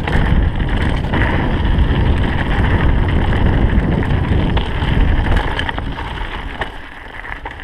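Wind rushing over an action camera's microphone on a mountain bike going downhill, with the tyres rolling over a dirt trail and a few clicks and rattles from the bike. The rush dies down near the end as the speed drops.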